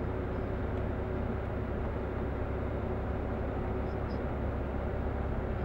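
Steady engine and road noise of a moving vehicle, an even low rumble without changes.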